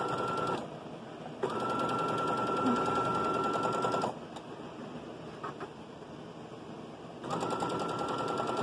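Electric household sewing machine stitching a seam in short runs: a steady motor whine with rapid needle ticks that stops about half a second in, runs again for about two and a half seconds, pauses, then starts once more near the end.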